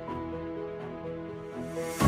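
Calm instrumental background music with held notes, a swell rising near the end.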